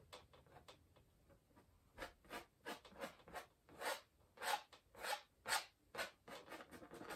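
Palette knife scraping oil paint across a stretched canvas in short strokes, about two a second, starting about two seconds in, laying shadow colour into a painted mountain.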